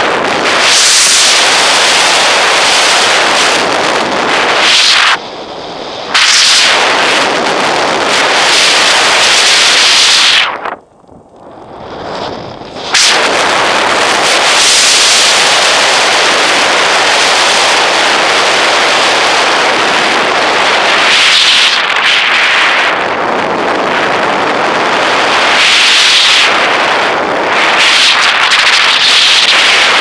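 Loud rushing wind buffeting the microphone of a camera mounted on the wing of an RC Duo Discus glider in flight. The noise drops away sharply twice: for about a second around five seconds in, and for about two seconds just after ten seconds.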